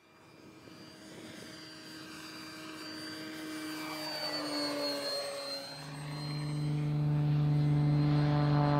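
Electric RC model airplane (XFly GlaStar, brushless motor and propeller) making a low flyby, its propeller whine swelling as it approaches and dropping slightly in pitch as it passes about four seconds in. From about six seconds in a low sustained droning note, the start of the intro music, comes in and grows louder.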